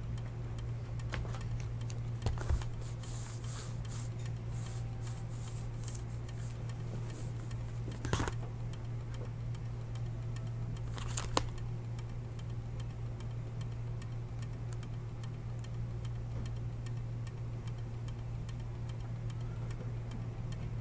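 Room tone with a steady low hum and faint regular ticking, broken by a few handling sounds as a cardboard trading-card box is picked up and handled: a knock about eight seconds in and a sharp click about three seconds later.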